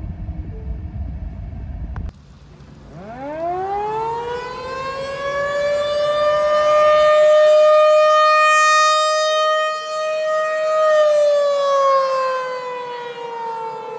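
Outdoor tornado warning siren winding up from a low pitch about two seconds in, rising to a steady high wail, holding, then slowly falling in pitch near the end.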